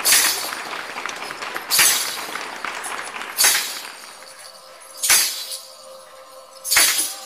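Stage-show music starting over the last of the applause: a loud crash hit about every 1.7 seconds, each dying away, with a held chord coming in about halfway through.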